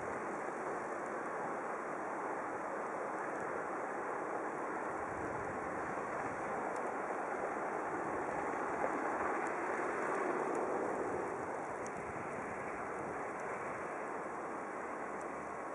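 Steady road-traffic noise of cars driving on snow-covered streets, their tyres hissing on the snow. One car passes closer near the middle, its sound swelling and then fading.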